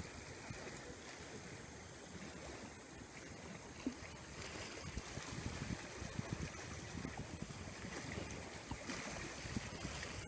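Seaside ambience: wind buffeting the microphone over a steady wash of sea water, the buffeting heavier from about halfway, with one small tick a little before that.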